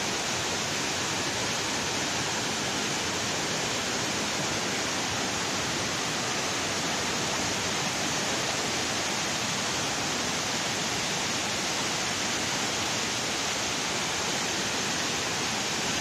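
Water from an overflowing reservoir pouring down a concrete spillway wall and churning in the channel below: a steady, even rush of falling water.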